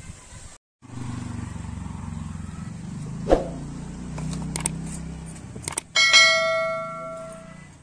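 A stainless-steel plate rings out when knocked against a stone slab: one bright metallic ring that fades over about two seconds. Before it, a low engine hum runs steadily for several seconds, with a couple of small clinks.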